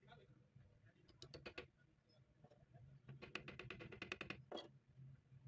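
Faint sharp clicks: a short cluster about a second in, then a quick even run of about ten a second lasting just over a second, and a last click near the end, over a steady low hum.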